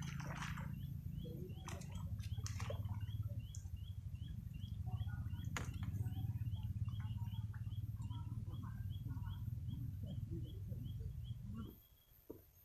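Steady low rumble with a short, high chirp repeated evenly about two or three times a second, like a small bird or insect calling; both cut off suddenly near the end.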